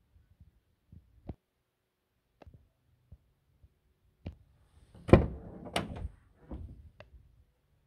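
Driver's door of a VW T5 van being opened: a few light clicks at the handle, then two loud latch clunks about five and six seconds in, followed by softer knocks as the door swings open.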